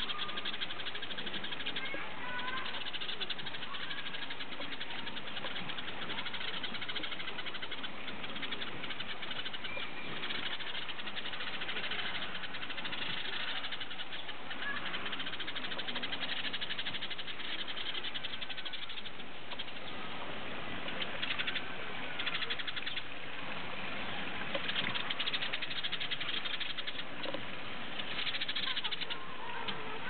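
A flock of house sparrows chirping and chattering without pause, many short chirps overlapping at once.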